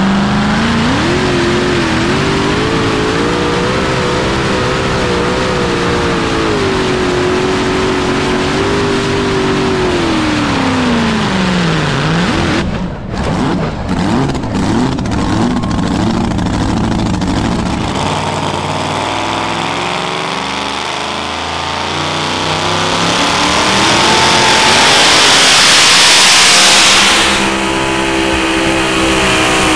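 Super modified two-wheel-drive pulling truck's engine at full throttle under load. Its revs climb about a second in, hold high, then sink around twelve seconds in as the throttle comes off. A loud rush of noise swells later on, and another pulling truck's engine is heard running near the end.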